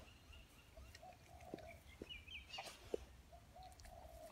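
Near silence, with a few soft clicks as a black Labrador noses and mouths a frozen chicken wing. Faint, short, low calls repeat in the background.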